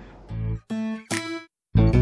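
Background music starts a moment in: short strummed guitar chords, each cut off by a brief silent gap.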